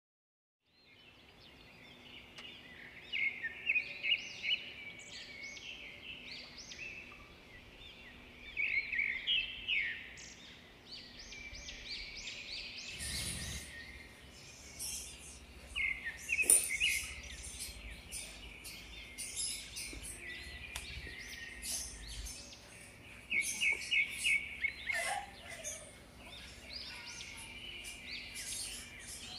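Small birds chirping, in short trilled phrases repeated every few seconds, over a steady background hiss.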